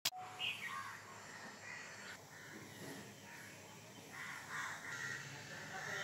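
Faint bird calls, a short one near the start and several in a row from about four seconds in.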